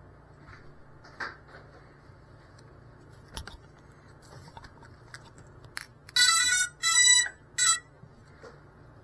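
An overturned FPV quadcopter beeping: three loud, buzzy electronic beeps close together, the last one shortest, starting about six seconds in. Under them are a faint steady low hum and a few soft clicks.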